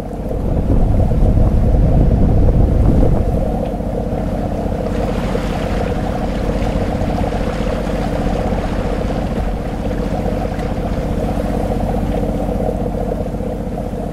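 A sailing yacht's inboard engine running steadily under way. Wind buffets the microphone with a heavy rumble for the first few seconds, and a hiss of wind and water joins from about five seconds in.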